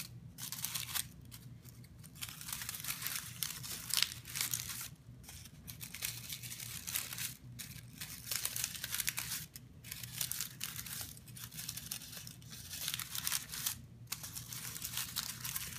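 Paper cupcake liner being crinkled and crunched by hand, a crisp papery rustling that comes in uneven stretches with short pauses between them.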